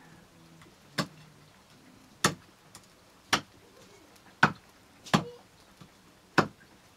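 A heavy knife chopping chicken pieces on a block, six sharp chops spaced about a second apart.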